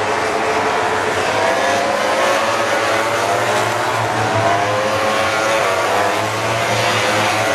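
MotoGP racing motorcycles' four-cylinder engines running hard as a close pack of bikes passes through a corner. Several engine notes overlap, each rising and falling in pitch as the riders shift and get back on the throttle.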